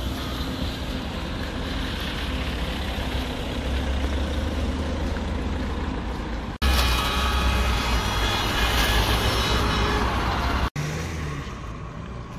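Road traffic noise: cars and trucks running on a highway, a steady rumble in three cut-together stretches. It is loudest from about seven to eleven seconds in, then breaks off abruptly.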